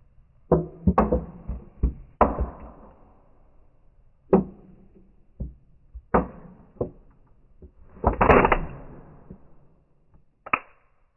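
Aluminium beer can being crushed under a sneaker, in a series of sharp crunches and crinkles with a longer crunch about eight seconds in as the can is flattened.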